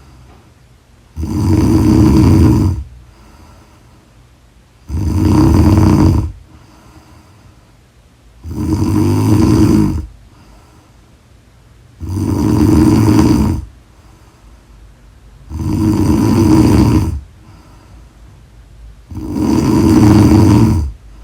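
A woman snoring loudly in her sleep: six long snores, one about every three and a half seconds, each lasting about a second and a half, with quiet gaps between them.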